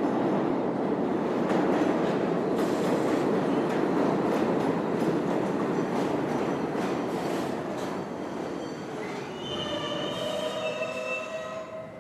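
Inside a subway car: the train runs along the rails with a steady rumble and scattered clicks. From about nine seconds in, the brakes squeal in several high tones as the rumble dies down and the train slows to a stop.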